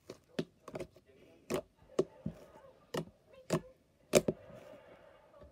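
Pink slime being squeezed and poked by hand, giving about a dozen sharp, irregularly spaced wet pops and clicks as air pockets in it burst.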